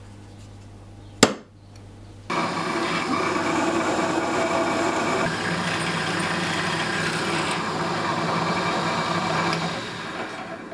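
A sharp knock about a second in. From about two seconds in, a drill press runs and its bit cuts into the metal hub of a lathe's half-nut lever, making the hole for a ball detent. The running fades near the end.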